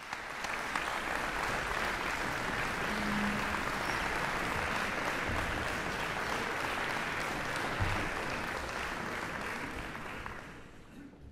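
Concert audience applauding steadily, the clapping dying away near the end.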